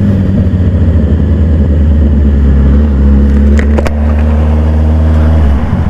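Honda CBR motorcycle engine running at steady revs while riding, with a couple of sharp clicks about three and a half seconds in and a brief drop in the engine note near the end.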